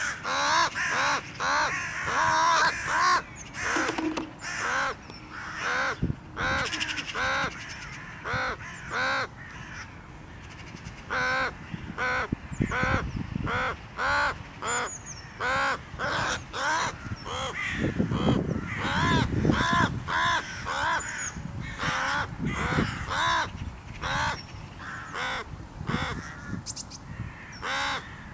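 Crow cawing over and over, harsh calls at about one to two a second, with a short lull about ten seconds in. These are the cries of a crow fighting off a goshawk's talons.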